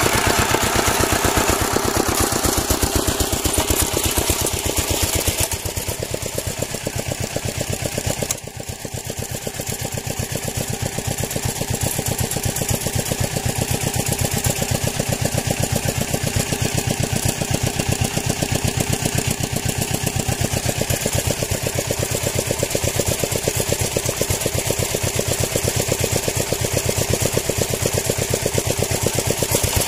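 An engine running steadily with a rapid, even beat, dipping briefly in level about eight seconds in.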